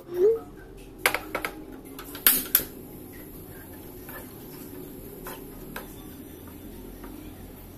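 A short rising tone, then a few sharp clicks and two louder clacks from a portable gas stove: its ignition knob being turned and the metal saucepan set down on its grate. After that there is only a low, steady background.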